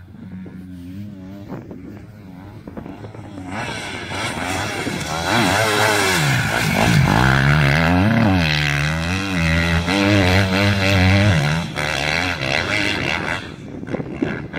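Motocross bike engine, faint at first, growing loud a few seconds in as the bike approaches. Its pitch climbs and drops again and again with the throttle and gear changes, then it falls away near the end.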